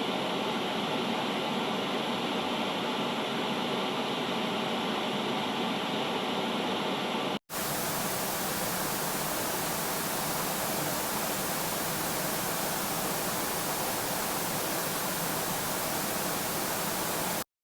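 Steady hiss of noise like static, in two stretches: a duller, slightly banded hiss that cuts off suddenly about seven seconds in, then a brighter, even hiss that stops abruptly near the end.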